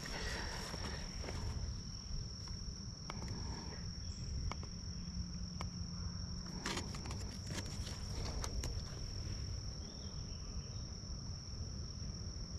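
A chorus of insects holding one steady high-pitched trill, over a low rumble, with a few light clicks and rustles from handling the fish and scale.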